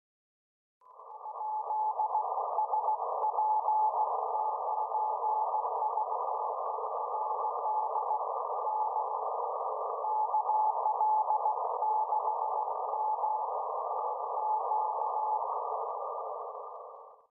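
432 MHz moonbounce (EME) signal heard through a receiver: a weak single-pitch Morse code tone keyed on and off, buried in steady receiver hiss held to a narrow audio passband. It begins about a second in.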